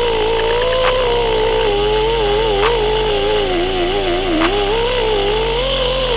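Pneumatic die grinder with a burr running at high speed while grinding out an intake manifold's throttle-body opening, a steady high whine whose pitch wavers and dips as the burr bites into the metal.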